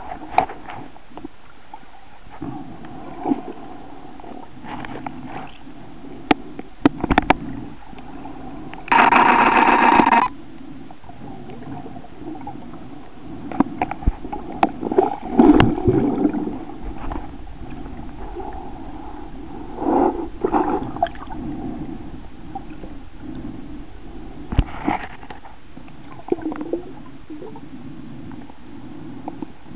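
Muffled underwater sound picked up by a submerged camera: a steady low hum with scattered clicks, knocks and gurgles. About a third of the way in comes a loud buzzing tone lasting about a second.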